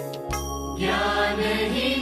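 Music from a Hindi devotional bhajan between sung lines: layered sustained melodic tones, swelling fuller about a second in.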